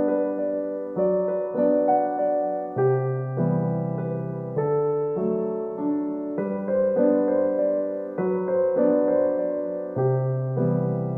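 Slow, gentle piano music: soft notes struck about every half second over held bass notes.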